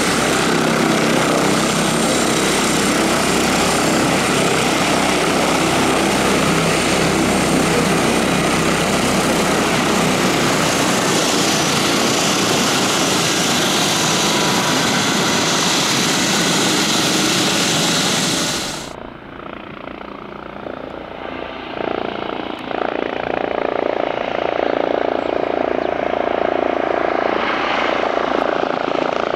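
Airbus Helicopters light twin-turbine helicopter running: loud rotor and turbine noise that drops abruptly about two-thirds of the way through, then builds up again.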